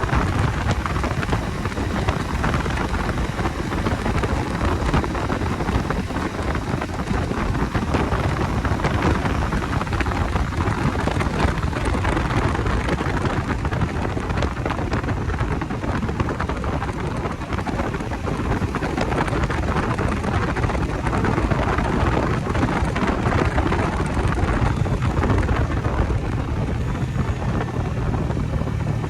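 Steady wind rush over the microphone of a moving Bajaj Dominar 250 motorcycle, with its single-cylinder engine running underneath. The engine hum comes up more clearly near the end.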